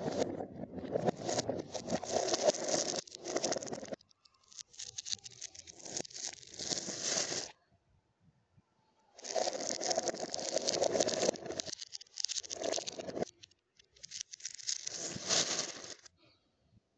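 Glass marbles rolling and clattering over a cardboard marble run with styrofoam rails: a dense rattle in four stretches, each cutting off suddenly, with short pauses between them.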